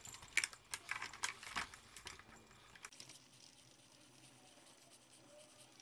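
Faint metallic clicks and light clatter from a Honda Today scooter's steering stem lock nut being spun off the steering stem threads by gloved hand. The clicks stop about three seconds in.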